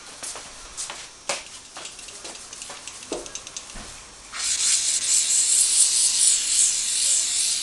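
An aerosol spray can hissing steadily for about three seconds, starting a little past halfway, as it is sprayed onto the piston top in a motorcycle's open cylinder. Before it, a few light clicks and knocks.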